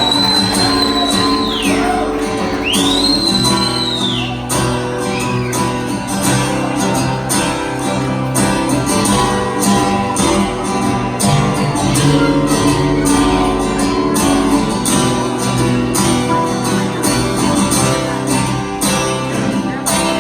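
Live rock band playing the instrumental intro of a song: guitar chords over a steady drum beat. Near the start there are two long high tones that each glide up and back down.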